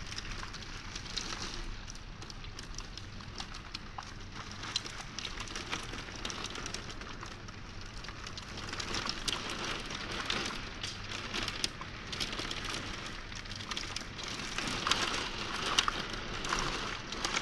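Heavy rain during a thunderstorm, drops hitting the window glass as a dense crackle of small ticks. It comes in heavier spells about halfway through and again near the end.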